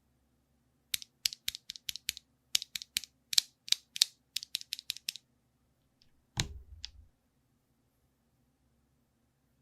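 Typing on a Geekstar mechanical keyboard: a quick run of light, clacky keystrokes (the 'dogak-dogak' sound) for about four seconds. About a second later comes a single heavier stroke with a deeper thud.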